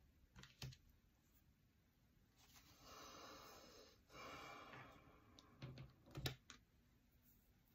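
Faint handling of oracle cards: a few soft clicks and taps as a card is drawn from the deck and laid on the velvet cloth, with two brief rustles in the middle.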